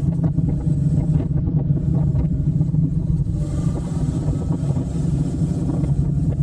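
Motorcycle engine running steadily at cruising speed, a low even drone, with a hiss of wind noise over it.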